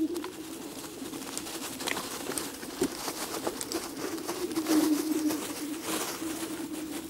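Electric off-road scooter's motor humming steadily at full power while it strains up a very steep slope, with scattered crackling from the tyres on the forest floor.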